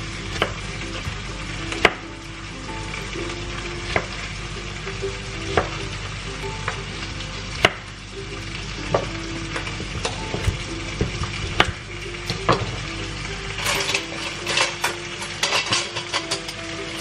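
Chef's knife slicing through a tomato, the blade clicking down onto a wooden cutting board with each cut, about once every one to two seconds. Near the end comes a quicker run of small clicks and taps.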